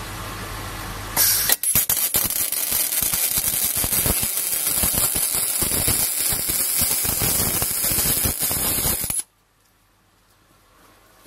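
MIG welding arc of an ESAB C200i running a bead on thin stainless steel with 316 stainless wire, crackling and sputtering steadily for about eight seconds after a short steady hiss, then cutting off abruptly when the arc stops.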